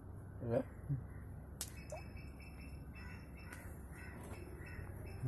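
A crow cawing, with a wavering call about half a second in, a shorter one just after and another at the very end, over a steady low rush of shallow water.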